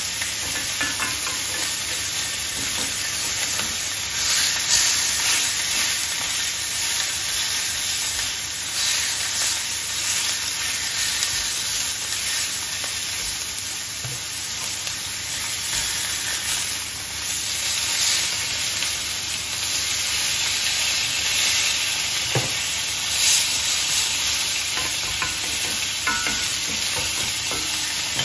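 Steaks searing in a hot cast-iron griddle pan with garlic, sizzling steadily.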